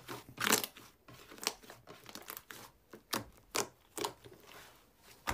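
Hands squeezing and stretching a fluffy slime, giving short, irregular crackles and squishes as it pulls apart.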